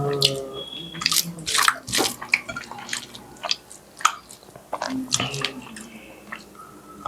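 Close-up wet chewing and lip-smacking of someone eating hilsa fish curry with rice, an irregular string of sharp, moist clicks.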